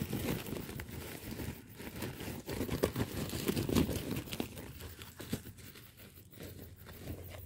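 Rustling and crinkling from hands at work, with many small irregular clicks and knocks; it grows quieter after about five seconds.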